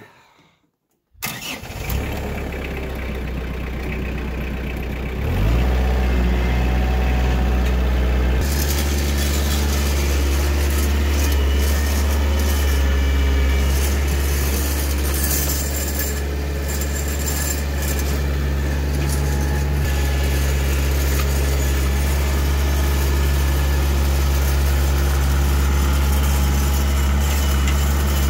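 Kioti compact tractor's diesel engine starting about a second in and running steadily. Its revs rise around five seconds in, and it runs louder from about eight seconds on.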